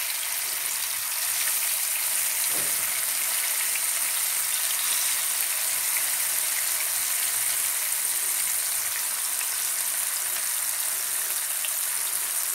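Masala-coated korameenu (murrel) fish slices shallow-frying in hot oil: a steady sizzle that gets a little louder about a second and a half in, as more slices are laid in.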